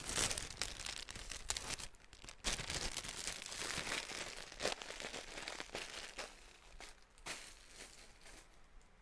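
Clothing and its plastic wrapping rustling and crinkling as it is handled and folded, with small irregular crackles; the handling noise thins out after about seven seconds.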